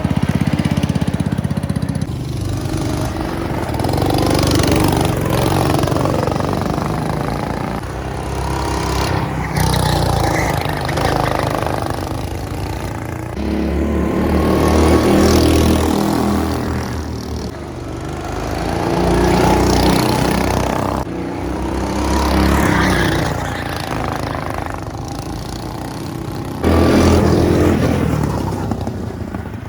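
Go-kart engine running hard, rising and falling in pitch as the kart speeds up and slows through the track's turns, with a louder swell near the end.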